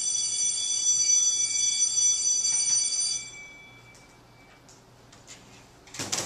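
A bell ringing: a set of steady high tones held for about three seconds, then stopping and dying away. A short noisy burst comes near the end.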